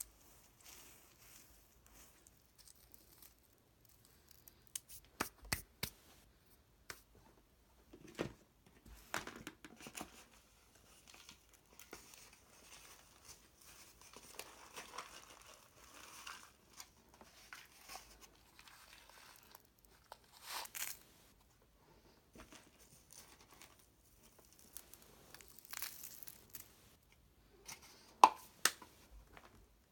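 Faint, intermittent rustling and crinkling with scattered sharp clicks and knocks; the vacuum is not running.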